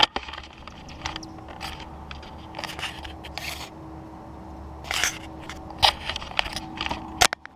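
Scrapes and sharp clicks of a small camera being handled and turned around on a lift bucket's rail, over a steady low hum with a faint steady tone that stops shortly before the end.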